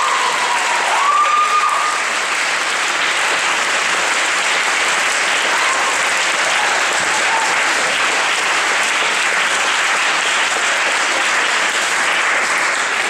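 Audience applauding steadily, dying away at the very end. A single voice rises briefly over the clapping about a second in.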